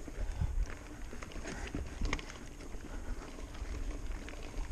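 Mountain bike rolling over a rooty, rocky dirt trail: a steady low rumble from the tyres and ground, with scattered clicks and rattles from the bike as it goes over bumps.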